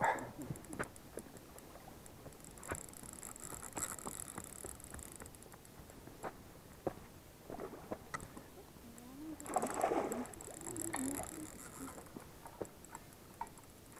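Quiet splashing and sloshing of water as a landing net is worked in the water around a hooked trout. Scattered small knocks and rustles run throughout. The splashing comes in two louder spells, about four seconds in and again around ten seconds.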